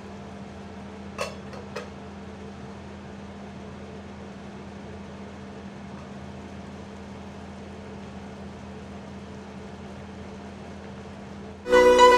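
Steady hum of an induction cooktop and its cooling fan heating a pot of soup, with two light clinks a little over a second in. Music starts suddenly near the end.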